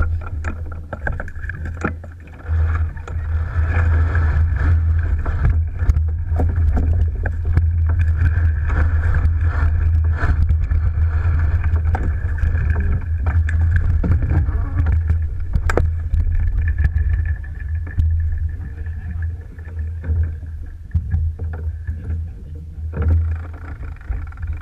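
Wind rumbling on the microphone and water rushing along the hull of an Alberg 30 sailboat under sail, with scattered knocks.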